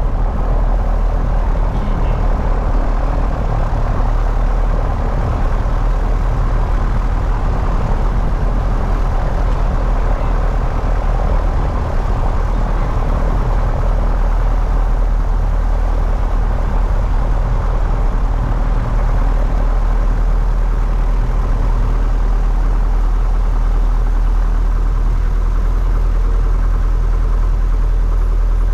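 Single-engine light aircraft's piston engine and propeller running steadily at low power while taxiing, heard from inside the cockpit.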